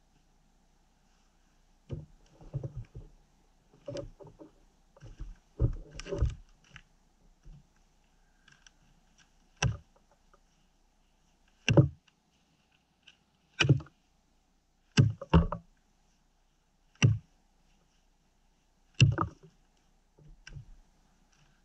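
Fire axe chopping branch stubs off a frozen spruce log. Sharp single strikes come about every two seconds through the second half, one of them a quick double. Before that are a few seconds of scattered softer knocks and rustling.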